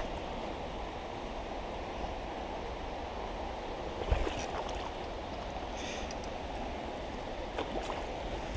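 Steady rush of flowing creek water, with a low thump about four seconds in and a few faint ticks near the end.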